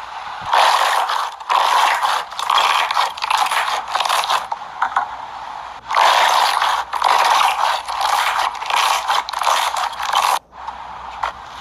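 Slime being squeezed and worked by hand, crackling and squishing in repeated short bursts with a brief break near the end.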